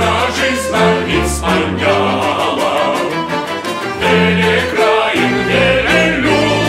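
A polonaise performed by a male chorus and a small band with a tuba, the voices and instruments holding long chords over a steady low bass line.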